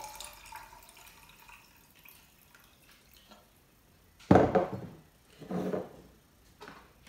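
The last of a water pour into a blender cup of soaked cashews, trailing off within the first second or so. Then a loud knock about four seconds in as the glass measuring jug is set down on the worktop, and a softer knock a second later as the blender cup is put down.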